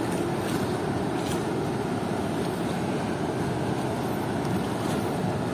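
Steady rushing of river water pouring through the open sluice gates of a weir.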